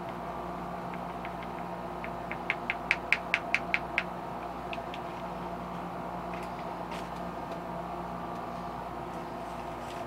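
A quick run of about eight sharp clicks, four or five a second, about two seconds in, then a few scattered single clicks, over a steady electrical hum.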